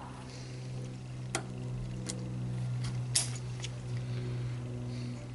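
Small sharp metallic clicks, about five of them, the loudest a little past the middle, as a circlip is worked out of a motorcycle fork slider with a tool, over a steady low hum.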